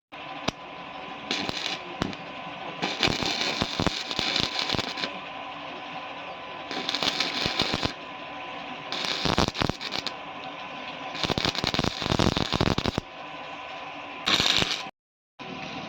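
Electric arc welding on a thick steel tractor plate, the arc crackling and sputtering in several louder bursts of a second or two with quieter crackle between.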